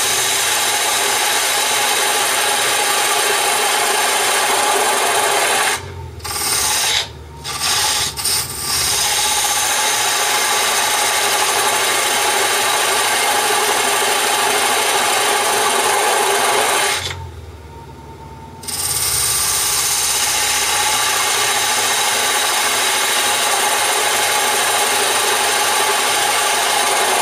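Diamond parting tool cutting straight into spinning wood on a mini wood lathe, making a steady scraping hiss as the tenon is cut down. It breaks off a few times about six to eight seconds in, and for about a second and a half past the middle, when only the lathe's running hum is left.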